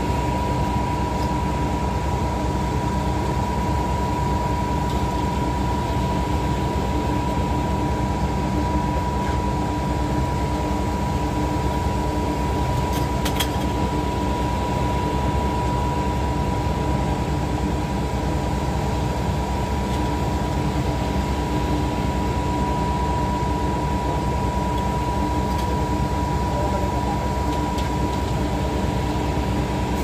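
Steady drone of diesel-powered concrete pumping equipment: a concrete line pump running with the mixer truck that feeds its hopper. A steady high whine runs through it.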